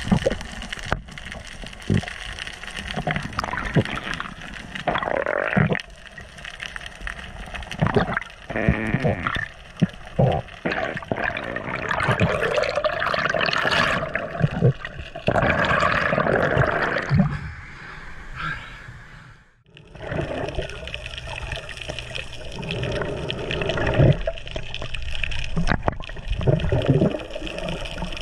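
Underwater water noise heard through a camera housing, with scattered clicks and knocks. About halfway through there is a louder stretch of bubbling, and the sound drops out briefly past two-thirds of the way.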